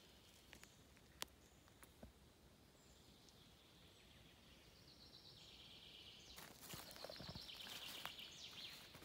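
Faint birdsong, with a trilling song growing louder in the second half. Footsteps rustle through dry leaf litter near the end.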